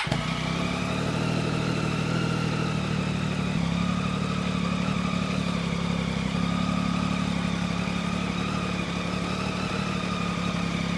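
Triumph Tiger 800's three-cylinder engine idling steadily through an Arrow aftermarket end can with its dB-killer baffle fitted, the baffle not fully seated in the can.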